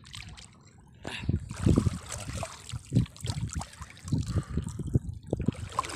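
Water splashing and sloshing as a fish is grabbed by hand and lifted out of waist-deep water, with water dripping from it. It begins about a second in, with irregular splashes at the loudest around two to three seconds in.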